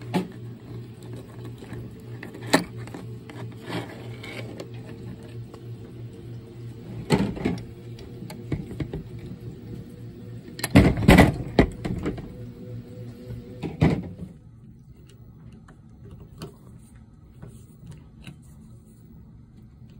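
Sharp knocks and clatter from handling a metal carburetor on a workbench, the loudest cluster about 11 seconds in, over quiet background music that stops suddenly about 14 seconds in. After that only faint ticks and scraping are left as a screwdriver works inside the carburetor body.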